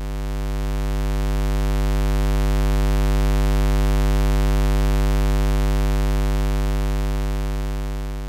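Steady electrical mains hum: a deep buzz with a long row of overtones, swelling slowly and fading away near the end.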